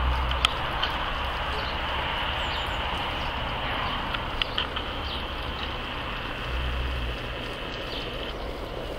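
Outdoor background noise: a steady hiss over a low rumble that swells and fades, with a few short high chirps and a sharp click near the start.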